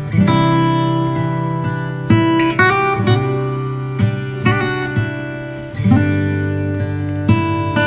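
Background music: acoustic guitar chords, each plucked or strummed and left to ring out, changing about once a second.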